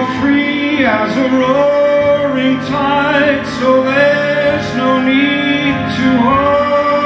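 Male singer's voice holding long notes over orchestral backing music, in a live ballad performance.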